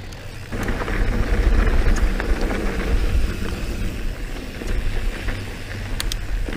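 Wind buffeting the camera microphone over the rumble and crunch of mountain bike tyres rolling fast on a dry dirt and gravel trail, with a few light clicks and rattles from the bike. It gets louder about half a second in.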